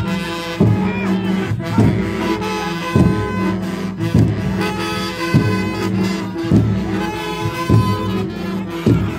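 Drums beaten in a slow, steady beat, about one heavy stroke every second and a bit, under sustained pitched tones, heard as music.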